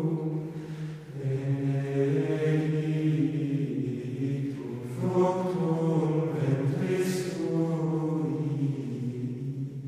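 Background music of slow vocal chanting: long, held sung notes in phrases, with short breaks about a second in and again about five seconds in, fading near the end.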